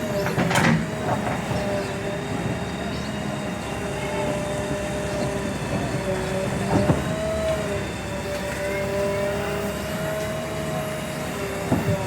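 JCB 3DX backhoe loader's diesel engine running with a steady whine, with a few knocks about half a second in, near seven seconds, and near the end.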